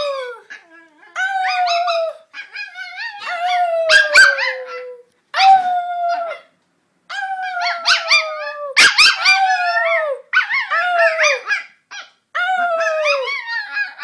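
Bolonka Zwetna dog vocalizing in a string of about ten drawn-out calls, each sliding down in pitch, with short breaths between them. There are a couple of sharp clicks about four and nine seconds in.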